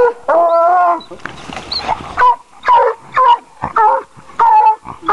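Coonhound baying at a caged raccoon: one longer bawl, then a run of short barks about two a second.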